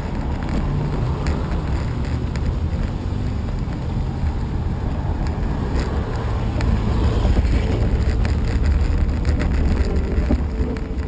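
Wind buffeting the microphone over a low, steady rumble of wheels on pavement while riding along, a little louder past the middle.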